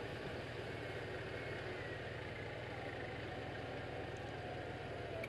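Vehicle engines idling steadily.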